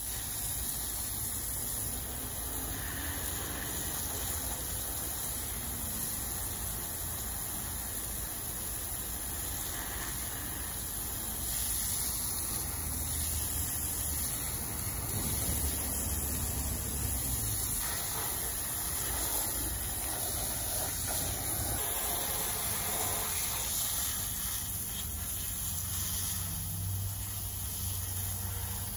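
Water from a garden hose spraying onto a pair of boots and wet pavement, a steady hiss.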